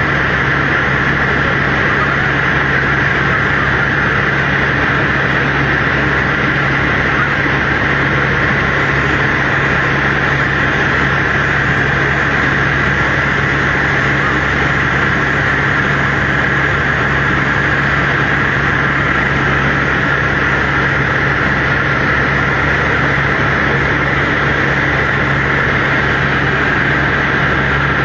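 Helicopter in flight heard from inside the cabin: a loud, steady drone of engine and rotors, with a constant low hum under a constant high whine.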